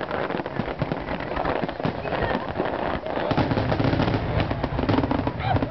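Fireworks display: a rapid, unbroken stream of sharp bangs and crackles from aerial shells bursting, with a deeper rumble joining about three seconds in.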